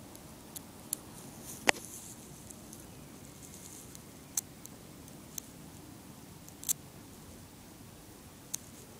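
About seven short, sharp snaps scattered irregularly, the loudest about two seconds in, as the shorted output leads of an 80 W solar panel touch and spark without holding a steady arc.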